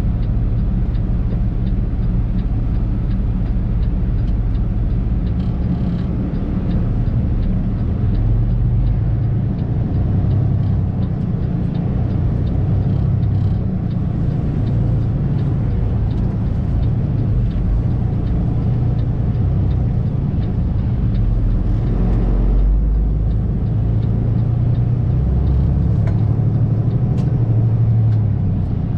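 Flatbed semi truck's diesel engine running steadily with a deep, even rumble.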